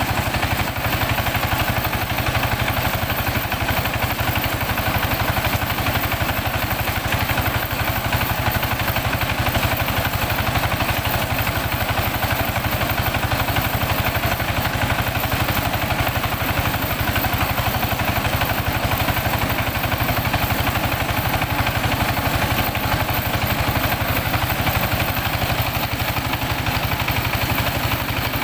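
Engine of a mobile mini rice huller running steadily at a constant speed, with a fast even low pulse, as the machine mills rice.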